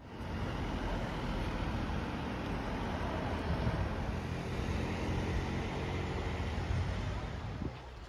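Steady city street traffic: cars running past on the road, a dense rumble with no single event standing out. It drops down near the end.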